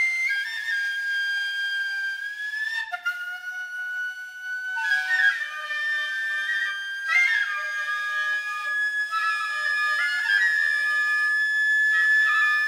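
Soundtrack music of flute tones: long held notes that slide slowly in pitch, with new notes coming in breathily a few times.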